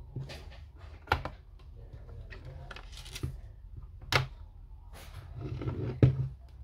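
Apple Time Capsule parts and tools being handled during disassembly: irregular clicks and scrapes, with sharper knocks about a second in, near four seconds and near six seconds.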